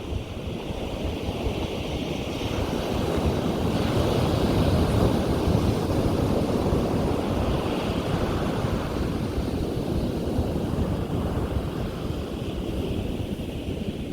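Ocean surf breaking on a beach: a wash of wave noise that swells to a peak about five seconds in and slowly eases, with wind buffeting the microphone.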